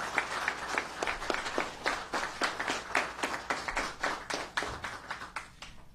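A small group of people applauding by hand, the claps thinning out and dying away near the end.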